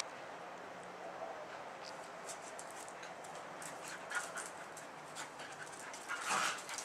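Two dogs play-fighting: faint scuffling and short clicks of claws and jaws, with a brief louder burst of dog noise near the end.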